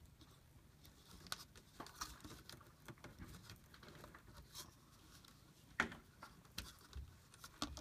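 Wire strippers working on stranded wire: faint, scattered clicks and snips as the insulation is cut and pulled off, with one sharper click about six seconds in.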